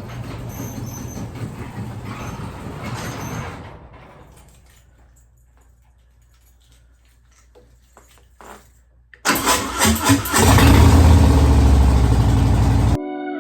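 Harley-Davidson Fatboy V-twin engine cranking over and catching about nine seconds in, then running loud and steady. Before that, a steady hum fades out about four seconds in.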